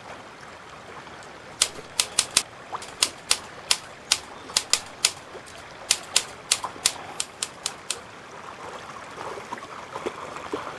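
Typewriter keystroke sound effect: a run of about twenty sharp clacks, unevenly spaced at roughly three a second, starting about a second and a half in and stopping about eight seconds in.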